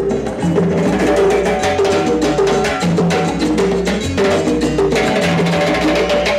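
Loud Latin dance music played through a sonidero sound system, with a repeating bass line and prominent hand percussion.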